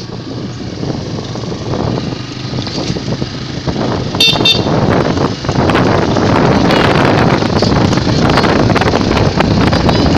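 Vehicle travel noise with wind on the microphone, growing louder, and a brief high-pitched toot about four seconds in.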